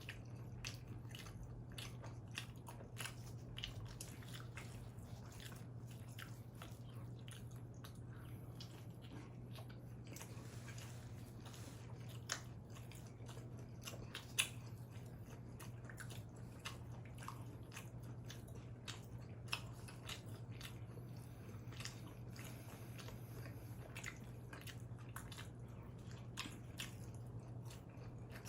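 Close-miked eating sounds of a person biting and chewing pizza: a steady run of small wet clicks and crunches, with a few louder bites about twelve, fourteen and twenty seconds in.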